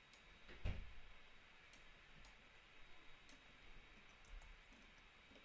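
Faint computer mouse and keyboard clicks, a few scattered sharp ticks over near silence, with one soft low thump under a second in.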